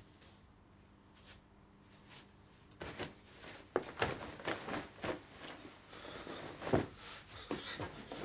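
Quiet room tone for about three seconds, then a busy run of clothing rustles, thuds and shuffles as someone grabs clothes from a bed and pulls on trousers.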